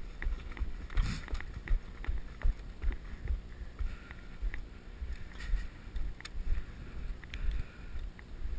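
Irregular low thumps and rustling with wind on the microphone, with a few faint clicks: handling and movement noise from a body-worn camera.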